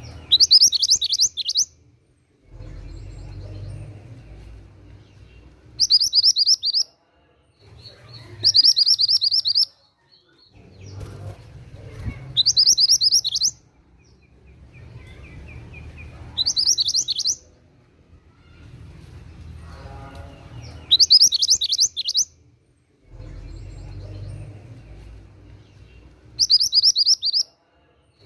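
Mantenan gunung songbird singing short, rapid, high trilled phrases, seven in all, each about a second long and a few seconds apart. A quieter low rumble fills the gaps between phrases.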